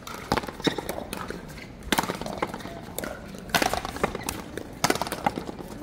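Paleta frontón rally: a series of sharp knocks, about five or six at irregular spacing, as the wooden paddles hit the ball and the ball hits the frontón wall.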